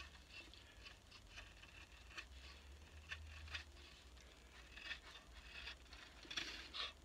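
Knife blade shaving the end of a new wooden axe handle, a series of faint, irregular scraping strokes as the wood is pared to fit the head.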